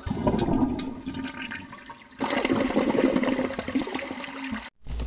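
Rushing, gurgling water in two surges: the first fades over about two seconds, the second starts about two seconds in and cuts off sharply near the end.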